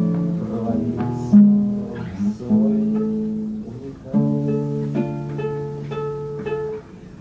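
Acoustic guitar playing chords after the last sung line of a song, each chord struck and left to ring, about one a second, with a run of quicker notes in the second half.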